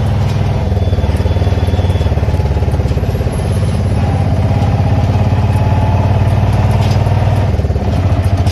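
Auto-rickshaw engine running, heard from inside the rear passenger cabin: a loud, fast, steady throb.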